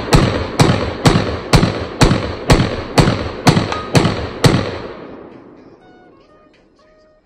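Glock 43X 9mm pistol fired in rapid succession, about two shots a second, ten shots in all. The last comes about four and a half seconds in, and its echo dies away after it.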